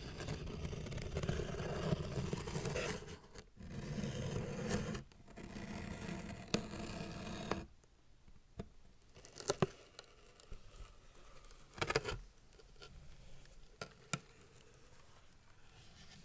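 iPad Mini box packaging being torn and scraped open, a continuous rustling scrape for about seven and a half seconds. Then it goes quieter, with a few sharp clicks and taps.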